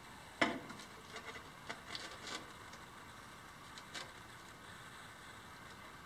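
Gray tile being set down on a concrete counter: a sharp knock as it comes down about half a second in, then a few light clicks and scrapes as it is nudged into line, and one more tap about four seconds in.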